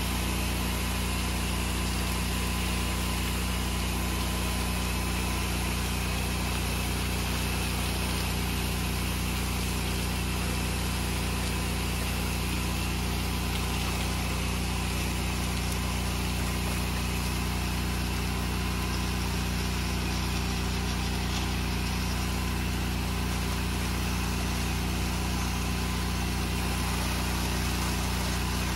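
Pressure washer's engine running steadily under load, with a steady hiss of the high-pressure water jet from the wand.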